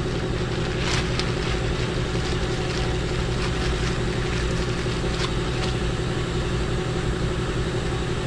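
An engine idling steadily, with a few faint clicks about a second in and again midway.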